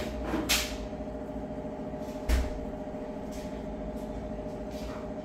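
A steady mechanical hum with a few soft knocks: handfuls of mashed potato stuffing being put down and pressed onto a flatbread on a plastic cutting board, the clearest about half a second in and just over two seconds in.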